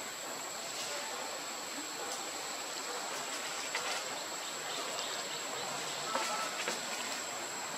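Steady outdoor ambience: an even hiss with a thin, constant high-pitched whine over it and a few faint clicks.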